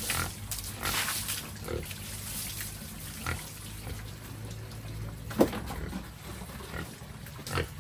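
Sows grunting at intervals, with some water splashing and dripping, and one sharp knock about five and a half seconds in.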